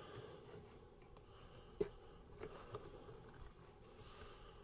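Faint scissors slicing packing tape along the edge of a cardboard game box lid: a few soft clicks and scrapes, the sharpest a little under two seconds in.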